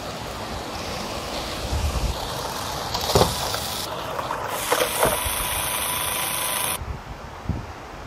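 Motorized LEGO train running along plastic track, a steady mechanical hum with sharp clicks about three and five seconds in, wind rumbling on the microphone; the sound cuts off abruptly near seven seconds.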